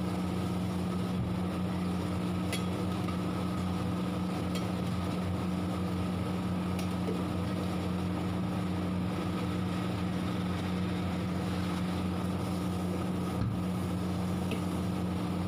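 Steady machine hum, a low drone with a fainter higher tone above it, with a few faint ticks.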